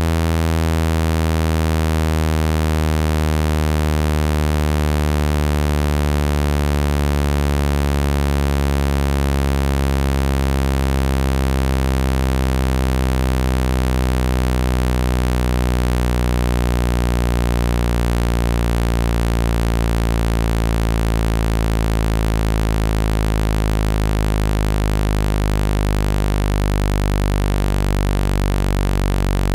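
Electronically generated speaker-cleaner tone: a loud, low buzz with many overtones, its pitch drifting slowly. It is played through a phone's speaker so the vibration shakes water and dust out of the speaker grille.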